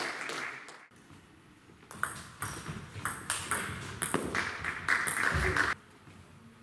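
Applause fades out. After a short lull comes a table tennis ball's sharp clicking off bats and table, a hit about every half second, which stops suddenly near the end.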